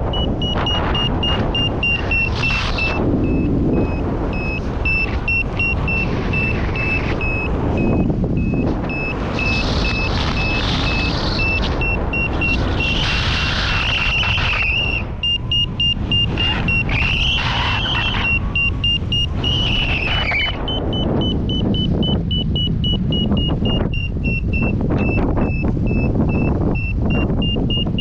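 Paragliding variometer beeping in a quick series of short, high beeps over heavy wind rush on the microphone; a beeping vario signals the glider is climbing.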